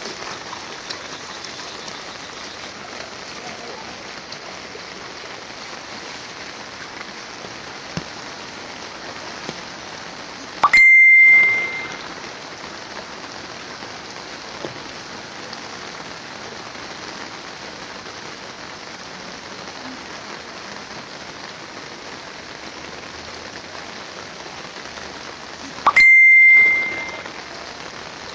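Steady hiss of rain, broken twice by a loud, high bell-like ding that rings for about a second and fades, the two dings about 15 seconds apart.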